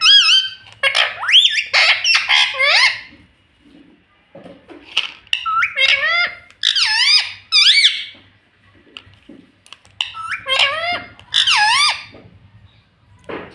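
Pet rose-ringed parakeet (green ringneck parrot) chattering and squawking in several bursts of high, bending calls, with short pauses between them.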